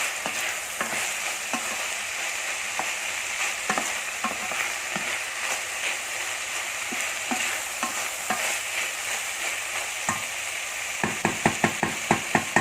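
Salmon cubes, green peas and mushrooms sizzling in a frying pan as they are stirred, the utensil clicking against the pan now and then. Near the end comes a quick run of about eight sharp clicks.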